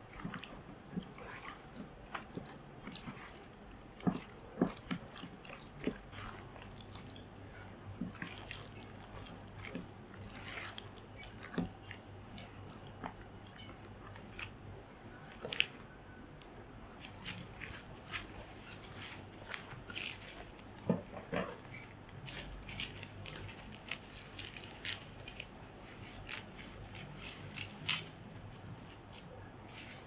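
Close-up food-preparation sounds: a metal spoon stirring and scraping a wet minced-meat and scallion filling in a plastic bowl, heard as a series of small sharp clicks, squelches and taps. Near the end, scissors cut through a sheet of dried tofu skin.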